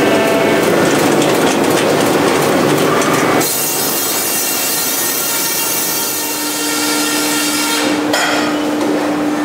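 Primultini vertical log band saw cutting lengthwise through a log, a dense, loud sawing noise. About three and a half seconds in the sound changes abruptly to a thinner, hissy sound with steady whining tones, and it shifts again near the end.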